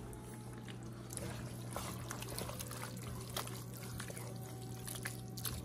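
Wooden spoon stirring ground meat and tomato sauce in a large aluminium pot: wet squelching and scraping with many small irregular clicks, over a steady low hum.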